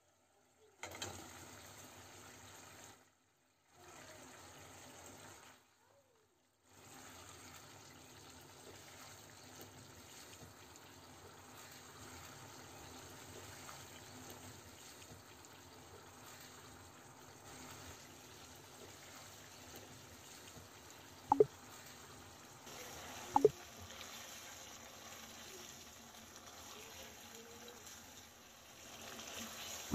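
Chilli sauce simmering in a non-stick wok, a low steady bubbling and sizzle as fried chicken pieces are stirred through it, cut by a few short silences in the first seven seconds. Two sharp knocks of the spatula on the pan come about two seconds apart past the middle.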